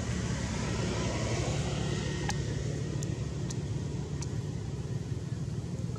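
Steady low engine rumble, with four short sharp clicks in the middle.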